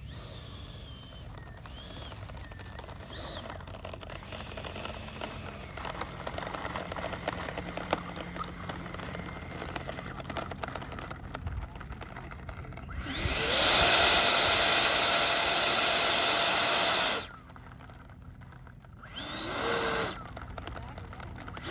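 RC model jet's ducted fan spooling up in a sharp rising whine about two-thirds of the way through, holding a loud, high steady pitch for about four seconds, then cutting off suddenly; a second short rising burst of the fan follows near the end. Throttle bursts while the jet taxis on the runway.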